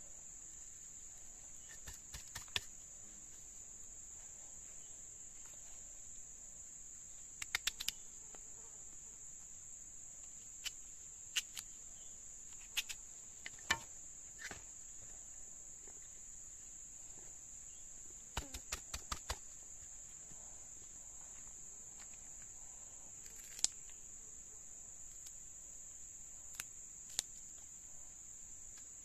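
Steady high-pitched chirring of forest insects, with scattered sharp clicks and knocks, including a quick run of about five a little past the middle.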